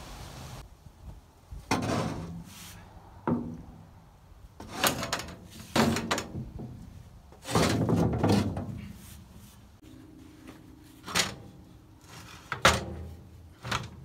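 Irregular heavy clunks and knocks, about eight of them, some trailing into a short scraping drag, as the hand levers and metal fittings of a Foley Belsaw M-14 circle sawmill are worked by hand.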